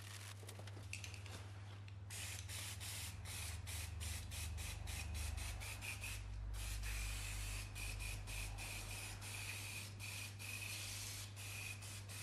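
Aerosol degreaser can spraying onto a greasy engine block in a rapid run of short hisses, then longer ones, with a thin whistle in the spray. The spraying starts about two seconds in.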